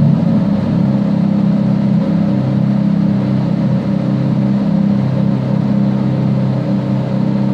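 Ferrari sports car engine idling steadily, its pitch and level holding even.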